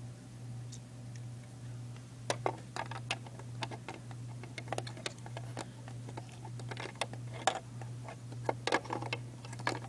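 Irregular small plastic clicks and taps of Lego pieces being handled, starting about two seconds in, over a steady low hum.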